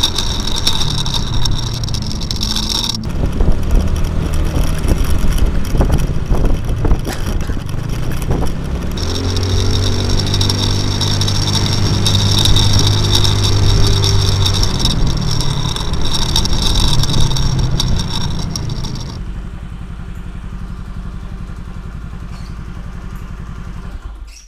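Yamaha Mio scooter's single-cylinder four-stroke engine running under way, its note rising and falling with the throttle. A little before the end it settles to a steadier, quieter running.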